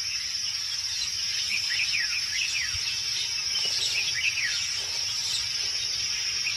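Steady high-pitched insect drone with a few quick bird chirps scattered through the middle: a dry-forest daytime background.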